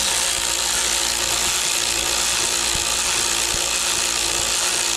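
Cordless drill running steadily at speed, turning an Oldsmobile 350's oil pump through the distributor hole to prime the engine's oil system with break-in oil.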